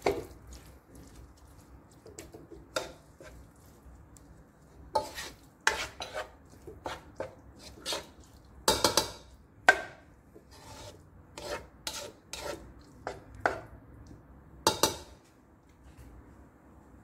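A spatula scraping and knocking against a stone-coated nonstick wok as diced vegetables and corned beef are stirred, in irregular strokes that stop near the end.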